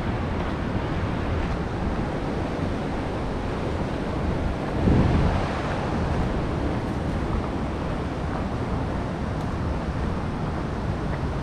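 Steady wind rushing and buffeting on an action camera's microphone, with a brief louder buffet about five seconds in.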